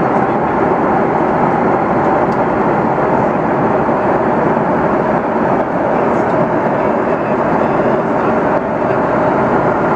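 Steady, loud jet engine and airflow noise of an Airbus A330-300 airliner heard from inside the cabin, even throughout with no clear tone or rhythm.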